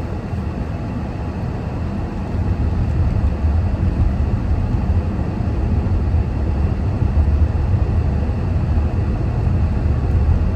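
Steady low rumble of a car on the move, with no distinct events, growing louder about two and a half seconds in.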